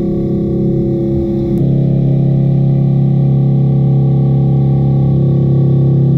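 Background rock music with distorted electric guitar holding sustained chords, moving to a new chord about one and a half seconds in.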